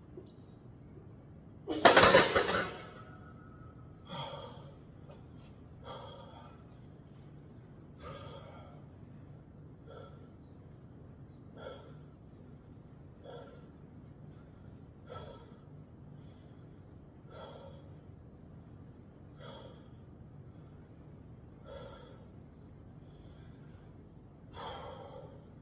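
A man breathing hard to recover after a heavy set of rows, one breath about every two seconds. A louder, sharper burst comes about two seconds in.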